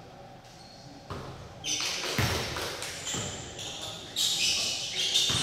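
Basketball in play in a gym: the ball thuds on the court about two and three seconds in and again near the end, among players' voices, with the hall's echo.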